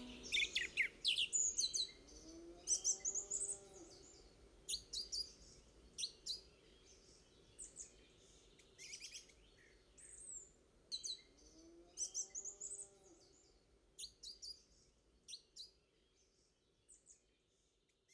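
Birds chirping: many short, high chirps and quick trills, with a lower call that rises and falls twice, about three seconds and twelve seconds in. The birdsong thins out and fades near the end.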